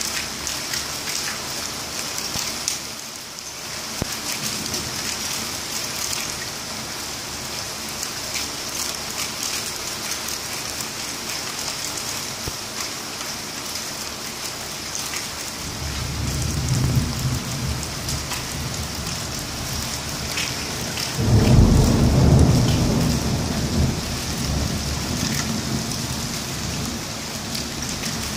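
Heavy rain falling steadily throughout, with thunder: a low rumble builds about 16 seconds in, then just after 21 seconds a sudden loud thunderclap from a close lightning strike is the loudest moment and rolls away over several seconds.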